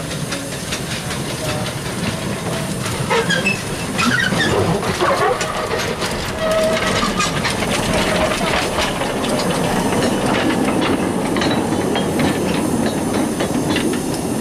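Narrow-gauge steam tank locomotive passing close by hauling a train of flat wagons: steam hissing and wheels clicking over the rail joints, louder from about four seconds in.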